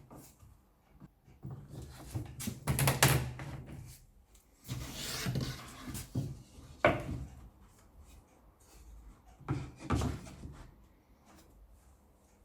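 Wooden knocks and clatter with a short scraping slide as wooden parts are handled and set down, the loudest knocks about three, seven and ten seconds in.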